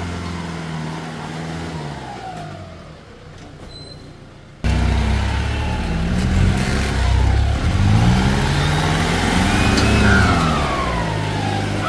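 Troller 4x4's engine revving up and down under load on a steep, rutted dirt climb, the revs repeatedly rising and falling. The sound jumps abruptly louder about four and a half seconds in, and a falling whistle-like tone sweeps down near the end.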